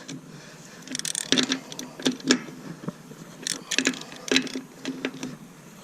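Scattered metallic clicks and clinks of hand tools being handled, in small clusters of quick ticks about a second apart.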